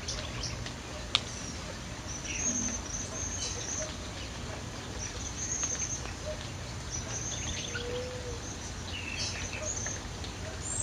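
Birds chirping and trilling in short high calls over a steady low background rumble, with one sharp click about a second in.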